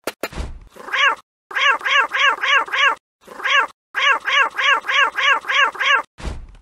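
Cartoon cat character's voice babbling in meow-like gibberish: a rising call, then two runs of quick, arching syllables at about four a second, with a short noisy burst at the start and another near the end.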